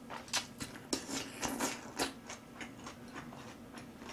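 Close-miked chewing: a quick run of wet clicking mouth sounds, densest and loudest in the first two seconds and then fainter, over a faint steady hum.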